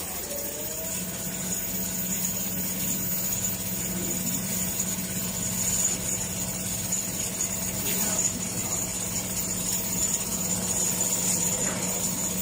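Large-format CNC sewing machine running steadily: a constant machine hum with a steady high whine above it, settling in about a second in.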